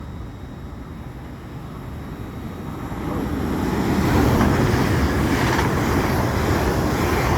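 LNER Class 801 Azuma electric train passing through at speed. Its rumble and rush build up over the first few seconds, then hold loud and steady as the train runs by.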